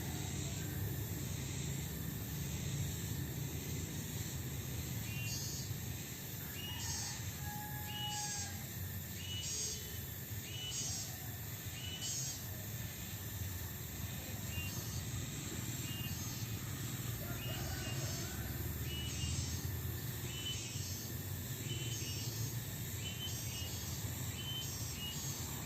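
Background music with short high notes repeating about once a second, over a steady low rumble of outdoor noise.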